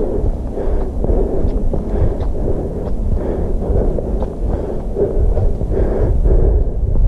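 Footsteps of a hiker walking on a rocky dirt trail, a regular crunch about twice a second, over a steady low rumble.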